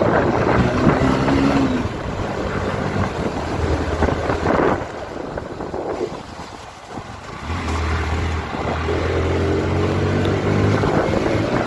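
Motorcycle engine running while riding, with wind and road rush over it. The engine note eases off about five seconds in and picks up again about two seconds later.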